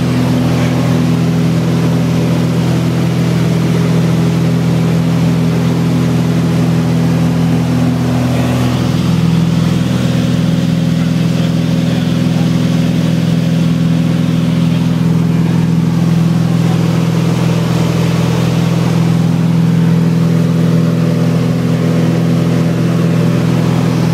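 Single-engine light aircraft's piston engine and propeller running at take-off power, heard inside the cabin as a loud, steady drone through the take-off roll on the beach and the climb-out. The pitch shifts slightly about eight seconds in.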